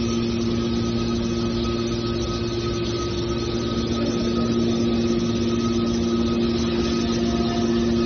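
Hydraulic can baler running with a steady mechanical drone: a constant hum from its motor and pump over even machine noise, growing slightly louder over the last few seconds.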